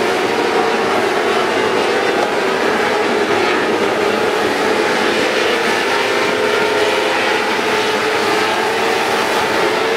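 A pack of winged sprint cars racing, their engines running together in a loud, steady drone at racing speed.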